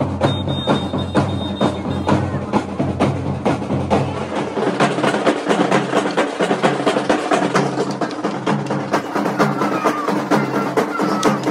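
Procession drum band of large bass drums and side drums beaten by sticks in a fast, steady rhythm, with a low bass line running beneath.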